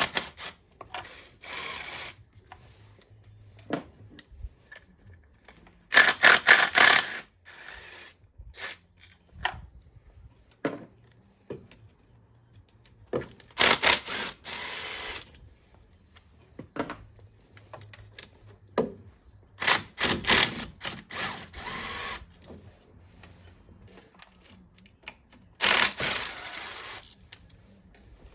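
Torx 30 bolts being wound out of an engine cover with a ratchet, in several bursts of rapid clicking a few seconds apart, with scattered light knocks of tools and parts between them.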